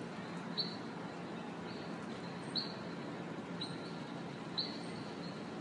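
A small animal chirps over a steady background noise. A short, high chirp comes about every two seconds, and each is followed by a fainter second note.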